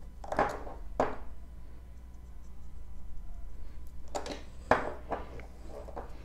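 Small hand-handling sounds while a nail is prepped: a few short soft scrapes and taps, two near the start and a group about four to five seconds in, over a steady low hum.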